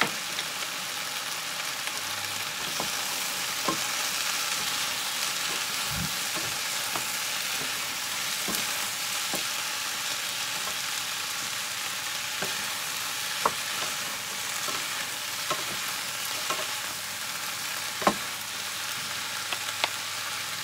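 Diced vegetables sizzling in a frying pan as two wooden spatulas stir and toss them, with a steady hiss and scattered sharp knocks of wood on the pan.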